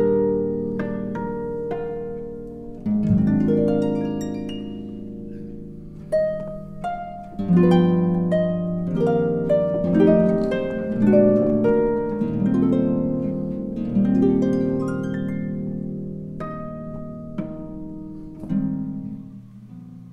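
Instrumental music on plucked strings: a gentle harp-like melody of ringing, fading notes over held chords.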